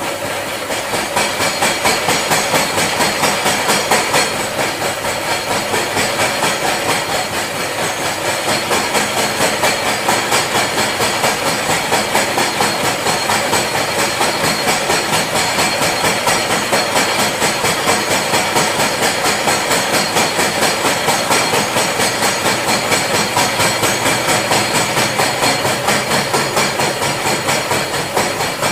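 Vertical milling machine face-milling a metal workpiece: the face mill cuts with a steady grinding noise that pulses evenly, about two to three times a second.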